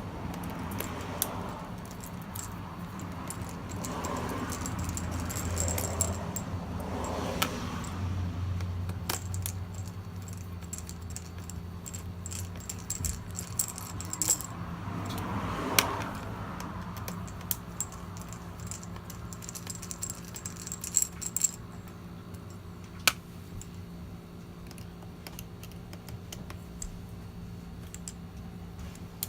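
Scattered small metallic clicks and clinks of a screwdriver and loose T8 Torx screws being handled as the screws are taken out, with some rustling. A low steady hum lies underneath.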